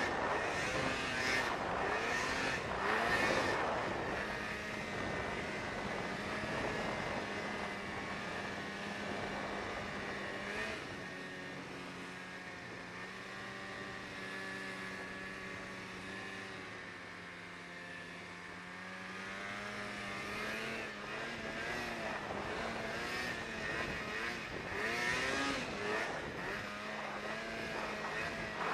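Snowmobile engine running under way, its pitch rising and falling with the throttle over a steady rush of noise. It eases off and runs steadier for several seconds midway, then picks up again.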